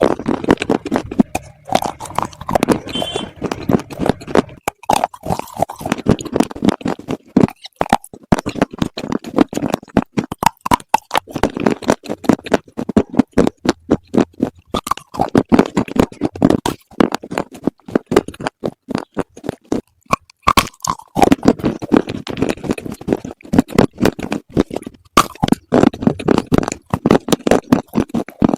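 Slate bars being bitten and chewed close to the microphone: a dense, unbroken run of sharp crunches and crackles.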